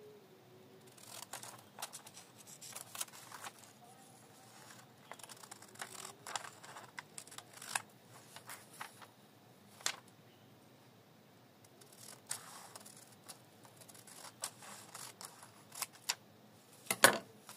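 Scissors snipping through a sheet of lined notebook paper in a series of short, irregular cuts. A single louder knock comes near the end.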